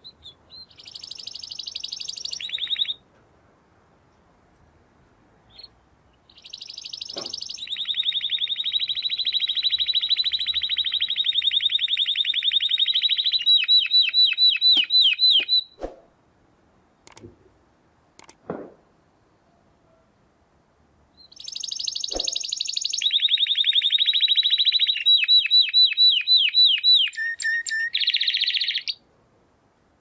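Canary singing three phrases of rapid rolling trills: a short burst at the start, a long phrase of about nine seconds, and another near the end that closes on pulsed notes. A few sharp clicks fall in the pause after the long phrase.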